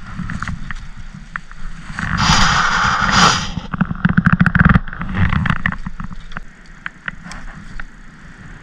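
Wind buffeting the microphone in a constant low rumble. About two seconds in there is a louder rushing, scraping noise that lasts about a second and a half, with scattered clicks throughout.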